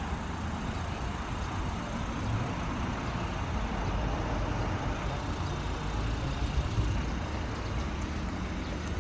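Steady vehicle noise: a continuous low rumble with a hiss over it and no distinct events.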